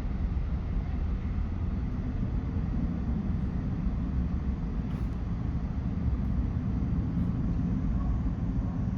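Steady low rumble of jet aircraft engines, even throughout with no rise or fall.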